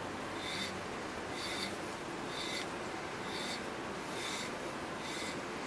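Hand tap cutting threads into a Ford six-cylinder cylinder head as it is turned with a tap wrench: a short scratchy rasp repeating about once a second.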